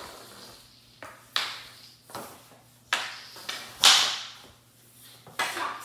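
Hockey sticks knocking and slapping on a hardwood floor during floor hockey: a string of sharp, irregular clacks, the loudest a little before four seconds in.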